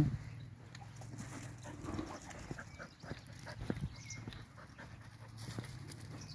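A dog panting close by while being walked, with scattered light crunching steps on a gravel path.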